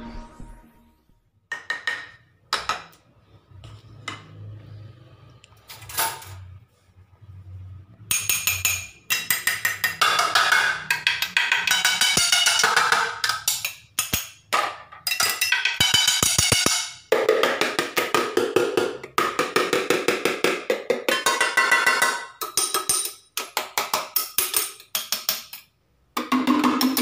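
Pots and plates being struck repeatedly, beaten like drums. A few separate ringing hits come first, then from about eight seconds in a fast run of clattering strikes, broken by short pauses.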